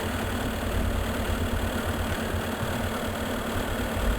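Skid steer loader's engine running steadily with a low hum as the machine is driven back and forth on its over-the-tire tracks to take up the slack.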